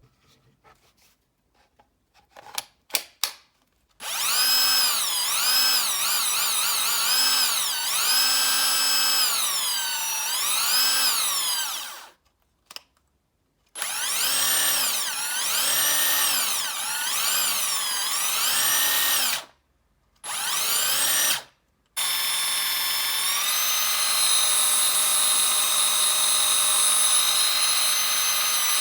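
Bosch GDS 250-LI cordless impact wrench running free with no load, its motor whine rising and falling as the trigger is squeezed and eased. It runs several times with short pauses, and the last run holds a steady high speed. A few clicks come before the first run.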